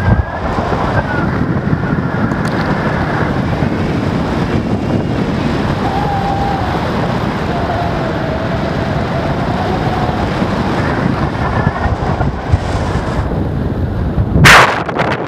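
Wind rushing over a camera microphone in flight under a paraglider, a steady loud buffeting. A brief, louder blast of noise comes near the end.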